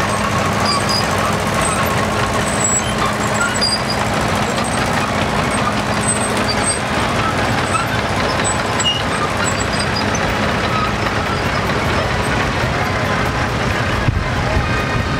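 Several vintage tractor engines running as a line of tractors, a crawler among them, drives slowly past one after another, over a crowd's murmur. A steady engine hum fades after about five seconds, and a deeper engine sound grows near the end as the next tractor comes close.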